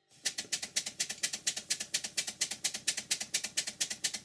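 Vintage horizontal twin-cylinder brass model steam engine starting almost at once and running with rapid, very even exhaust beats, its valve timing freshly set. It runs without the wheeze it once had, because its new pistons fit the bore.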